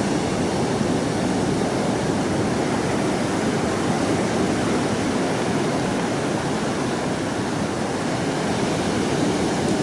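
Strong wind and rough, storm-driven surf making a steady, unbroken rushing noise.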